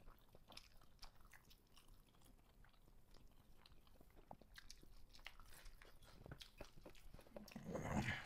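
Faint eating sounds: chewing biryani and fingers mixing rice on steel plates, with small scattered clicks. A brief louder noise comes near the end.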